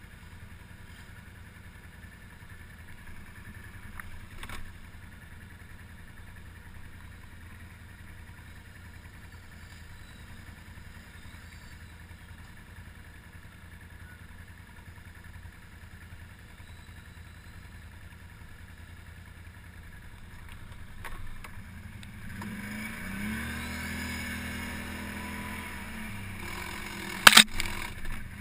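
ATV engine idling steadily, then revving up and pulling away about three-quarters of the way in. A sharp, loud knock comes near the end as the machine rides onto the rough, muddy track.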